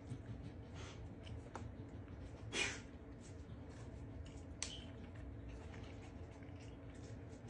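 Faint small clicks and smacks of someone chewing a gummy candy, with one brief, louder rustling sound about two and a half seconds in.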